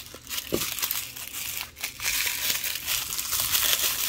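Pink wrapper crinkling and rustling continuously as hands unwrap a small doll accessory.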